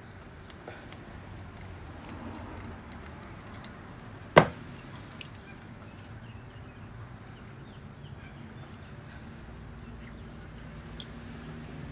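Faint small metallic clicks as a screwdriver works the brass main jet out of a Solex 34 PICT-3 carburettor body. About four seconds in comes one sharp knock, the loudest sound, and a lighter one just under a second later, as the screwdriver is set down on the workbench.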